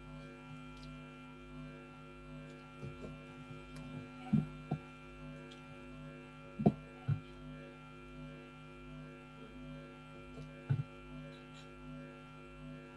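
Steady electrical mains hum, a stack of constant tones, with a few faint short knocks through the middle.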